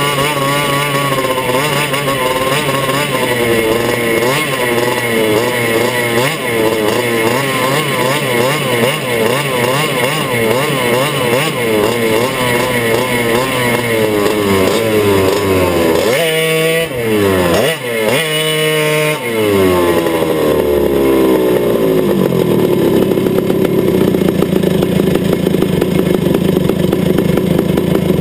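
Two-stroke racing kart engine heard from onboard, its pitch wavering up and down as the kart runs the dirt oval. About sixteen seconds in the pitch sweeps sharply up and down three times, then it settles to a steady, lower, pulsing run near idle.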